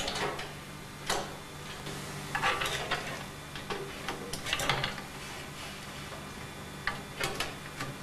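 Small plastic clicks and rustling from ribbon-cable connectors and a port bracket being handled and pushed onto motherboard header pins, coming irregularly in short clusters. A low steady hum sits underneath.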